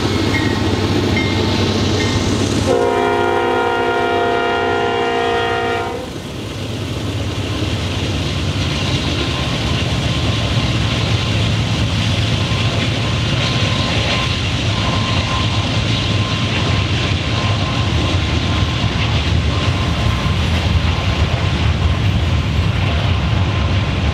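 Diesel locomotive's multi-chime air horn sounding one long blast from about three to six seconds in, sounded for a road grade crossing. Then the train runs past with a steady low engine drone and a continuous rumble of wheels on rail.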